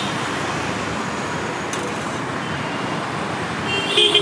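Steady road traffic noise, with a short, louder ringing sound near the end.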